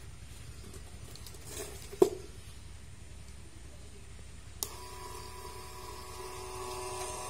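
A sharp knock about two seconds in, then a click as a small slide switch is flicked on, and a small yellow plastic DC gear motor starts running with a steady whine.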